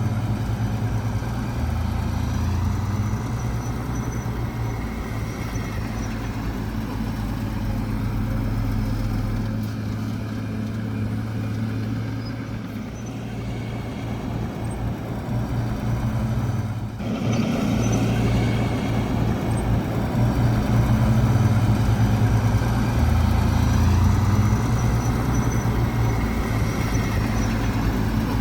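Heavy diesel engine of earthmoving machinery running steadily. The sound breaks off sharply for a moment about two-thirds of the way through, then carries on louder.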